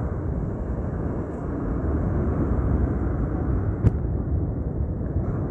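Steady rumble of wind buffeting the phone's microphone, mixed with surf breaking on the beach. A single sharp click about four seconds in.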